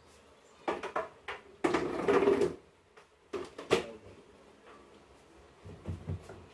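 Knocks and clatter of cabinet parts being handled and fitted together during assembly, with a longer scraping, sliding sound about two seconds in and a couple of dull thumps near the end.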